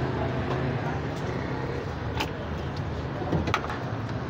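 Busy street-stall background: a steady low hum of traffic with voices in the background. A few sharp clicks and knocks come from the plate being handled on the steel counter, the loudest about three and a half seconds in.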